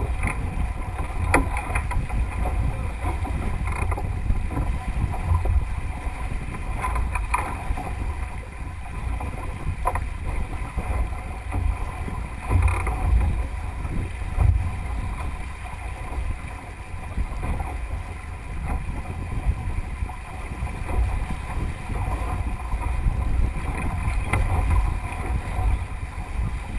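Wind buffeting the microphone over the rush and splash of water along the hull of a Melges 24 sailboat heeled over and sailing fast, with a few short knocks.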